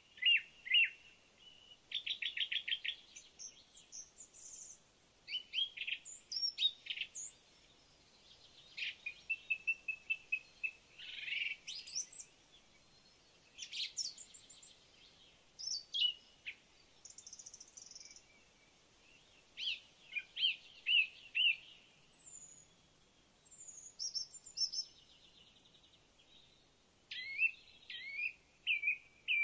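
Several wild birds calling and singing: bursts of chirps, quick trills and short whistled notes follow one another with brief pauses, over faint steady background noise.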